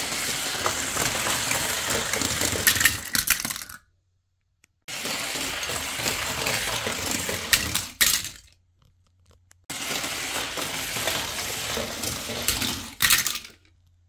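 Die-cast toy cars rolling down a plastic ramp with a steady rattling whir. Each run ends in sharp metal clinks and clatter as the cars strike one another. Three such runs, each about four seconds long.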